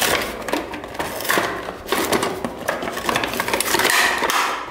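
Stiff clear plastic blister packaging and a cardboard toy box crackling and rustling in uneven surges as they are handled and pulled apart by hand.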